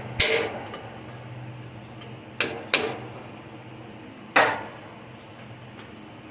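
Four sharp metal clanks, each with a short ringing tail, like metal being struck or knocked: one just after the start, two close together about two and a half seconds in, and one about four and a half seconds in.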